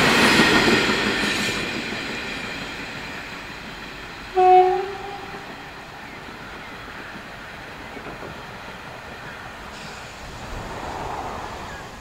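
V/Line Sprinter diesel railcars running away over the rails, their noise fading over the first few seconds into a low rumble. About four seconds in, the railcar's horn gives one short blast.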